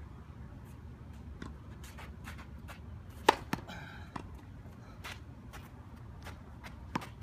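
Tennis ball struck by rackets and bouncing on a hard court during a rally: a handful of sharp pops spaced about a second apart, the loudest about three seconds in with a short ringing.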